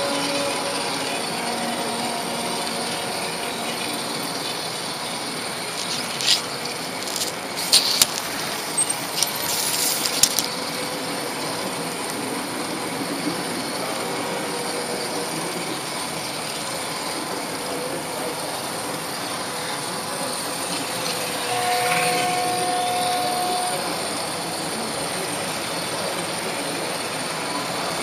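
Model train rolling along the layout's track with a steady running rattle of wheels on rails. A cluster of sharp clicks comes about six to ten seconds in, and a brief steady tone sounds a little past twenty seconds.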